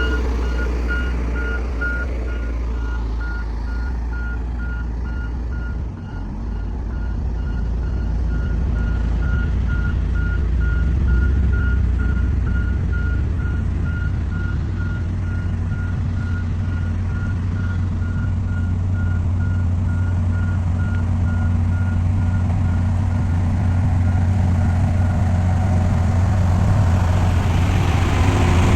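Komatsu bulldozer's diesel engine running steadily with its reverse alarm beeping. The beeping stops near the end as the engine noise swells.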